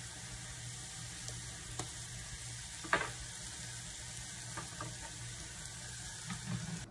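Pork and chicken pieces sizzling as they fry in oil in a small pan, a steady hiss. A few light clicks and one sharper knock about three seconds in.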